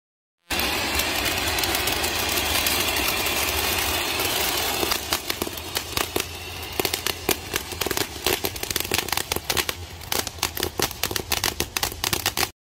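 A firework hissing steadily for about four seconds, then going over into a dense, irregular run of sharp crackling pops until it cuts off suddenly near the end.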